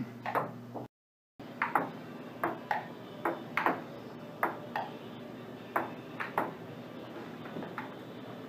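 Table tennis rally on a wooden conference table: the celluloid ball clicks sharply off the tabletop and the paddles, the hits coming irregularly about a third of a second to a second apart. All sound drops out briefly about a second in, and the rally stops about six and a half seconds in, leaving only a few faint clicks.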